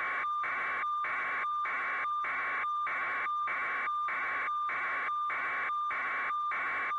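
Electronic static: a hiss with a steady tone running through it, pulsing on and off in even beats nearly twice a second.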